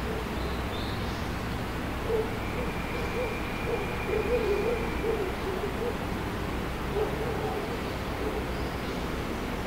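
Outdoor ambience with a steady low rumble, and a pigeon cooing in short repeated phrases from about two seconds in, then once more about seven seconds in.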